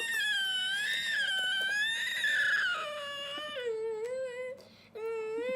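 A high-pitched, drawn-out whining cry that wavers up and down in pitch: one long wail for most of the first three seconds, then shorter, steadier cries with a brief break near the end.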